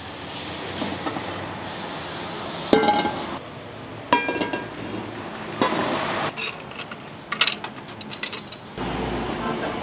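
Frying pans and woks being set down on a gas range's metal burner grates: four sharp metal clanks about a second or two apart, some with a brief ring.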